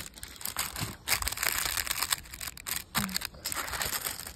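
Plastic packaging of flower bulbs crinkling and rustling as it is handled: a dense crackle broken by a few short pauses.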